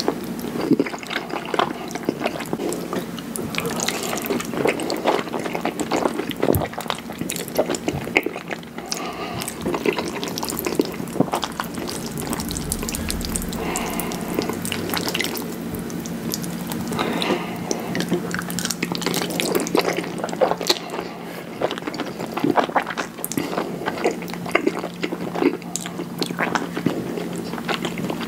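Close-miked wet mouth sounds of eating creamy fettuccine: chewing, slurping noodles and smacking lips, a dense run of small wet clicks over a low steady hum.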